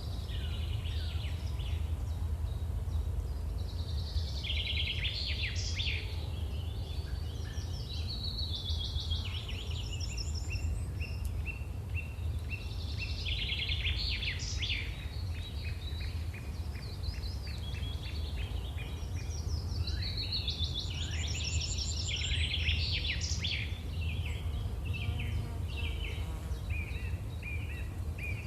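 Small birds chirping and trilling in repeated bouts of quick notes, over a steady low rumble of background noise.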